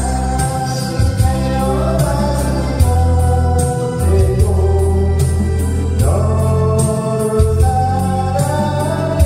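Karaoke performance of a Korean ballad: a voice singing the melody over a backing track with a steady bass.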